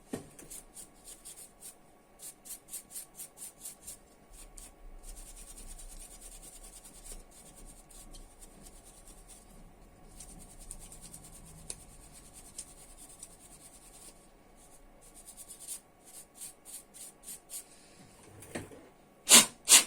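Quick, rhythmic rubbing strokes, about four a second, as dust is cleaned off a laptop's cooling fan, with softer rubbing in between. Two loud sharp sounds come near the end.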